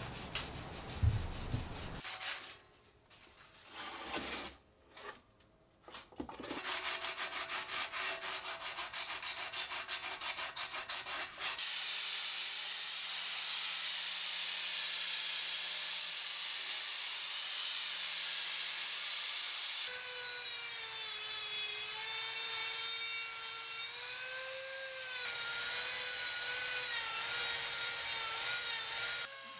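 Sandpaper rubbed by hand on the corners of a steel guitar body in quick repeated strokes. About a third of the way in, a steady power-tool noise takes over, and from about two-thirds in a whining motor tone with a wavering pitch runs over it.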